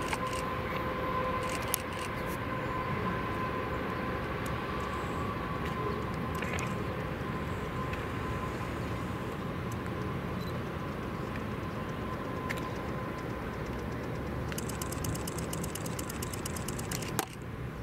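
CN freight train approaching a grade crossing, its locomotive and cars making a steady rumble. A steady tone at the start fades out within about two seconds, and a fast, even ticking comes in during the last few seconds.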